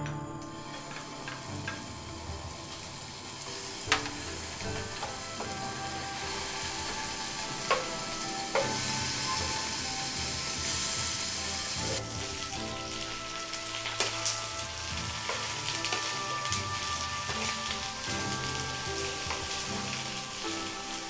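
Chopped garlic and then aubergine pieces sizzling in hot oil in a nonstick wok. A wooden spatula knocks against the pan a few times, and the sizzle grows louder for a few seconds near the middle.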